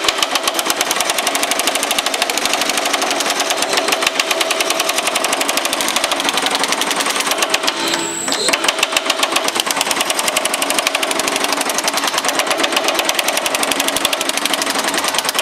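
Baileigh MH-19 power hammer pounding sheet metal in a fast, steady run of blows, working it in a shrinking pass. The hammering stops briefly about eight seconds in, then starts again.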